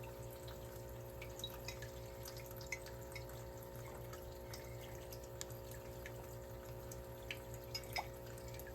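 Washing machine running: a steady hum with water and dripping sounds, with scattered faint ticks.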